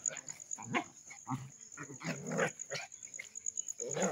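Two dogs fighting, with short growls and barks coming in quick, irregular bursts.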